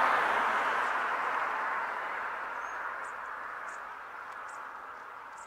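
A passing vehicle's road noise, loudest at the start and fading steadily away. A few short, high chirps come in over the second half.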